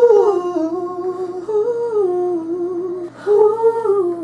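A single voice singing a slow wordless line in falsetto, in three phrases of long held notes that slide up and down between pitches.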